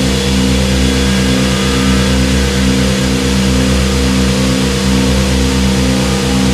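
Analog synthesizer drone: a loud, low, gritty chord held steadily, its tones throbbing about twice a second with a faster flutter underneath, much like an idling engine.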